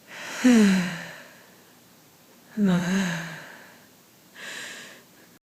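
A woman breathing deeply: two long sighing out-breaths, voiced and falling in pitch, about two seconds apart, then a softer breath without voice near the end.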